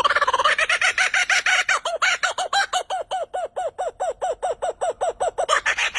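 A bird singing a fast, even run of repeated arched notes, about seven a second.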